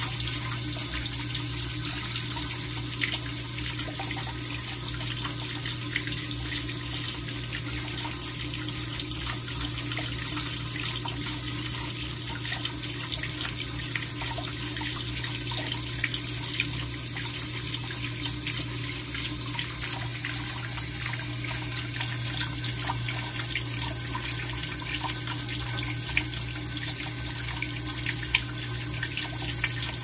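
Steady running water, an even rushing flow with a low steady hum beneath it.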